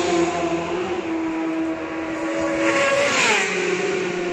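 Isle of Man TT racing motorcycles passing at full speed. A bike that has just gone by holds a steady, high engine note as it pulls away, then a second bike screams past about three seconds in, its pitch dropping sharply as it goes by.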